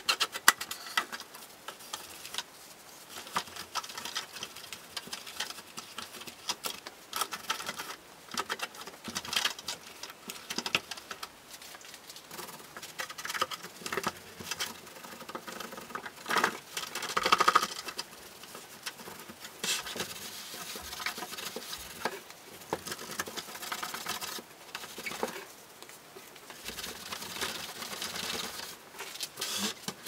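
Cloth wiping and scrubbing the plastic housing of a disassembled coffee machine: irregular rubbing strokes with scattered light clicks and knocks of the plastic parts as the machine is handled, loudest about halfway through.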